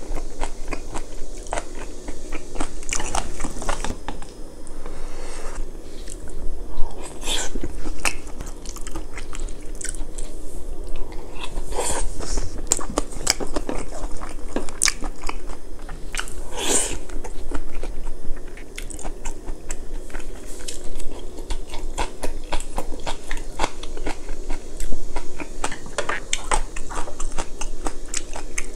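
Close-miked chewing and biting of a mouthful of food, with many short sharp clicks and a few louder moments about 7, 12 and 17 seconds in.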